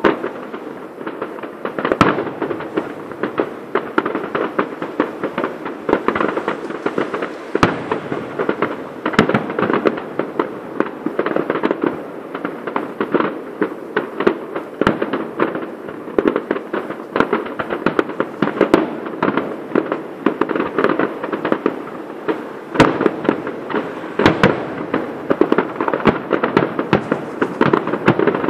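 Fireworks display: a dense, continuous crackling of bursting shells, with a few sharper bangs standing out through it.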